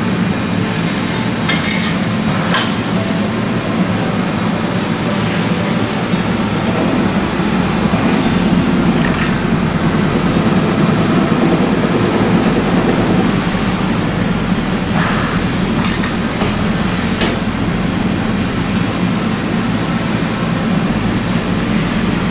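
Proto-1 RFM-6D rotary tube end forming machine running as it beads and cuts off a 6-inch metal tube: a steady mechanical rumble that grows louder through the middle, with a few sharp clicks.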